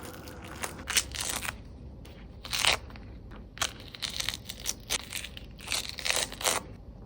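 Irregular crunching and crinkling noises in short bursts, about seven over several seconds, as from hands working with food or wrapping during preparation.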